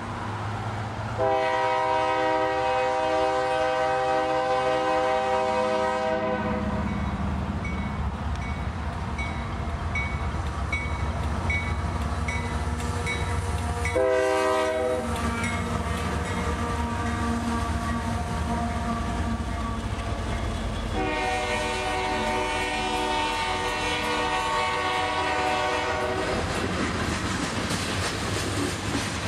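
A Union Pacific diesel freight locomotive sounds its horn for a grade crossing. There is a long blast, then a short blast about halfway whose pitch drops as the locomotive passes, then another long blast near the end. Between the blasts the locomotives' diesel engines rumble, the wheels clack, and a crossing bell dings about once a second.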